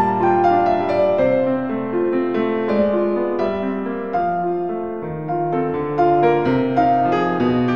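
Slow, calm piano music: single notes and chords held for about a second each, gently fading.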